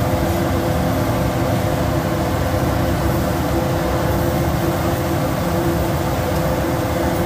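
Steady hum and hiss of running machinery, with a low drone that holds one pitch.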